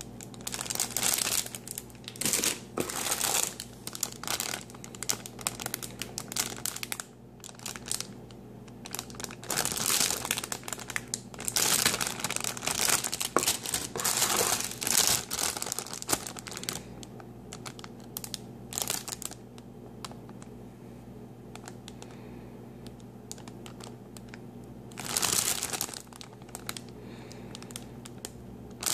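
Clear plastic bags around plastic model-kit runners crinkling as they are handled, in irregular bouts with a quieter stretch about two-thirds of the way through.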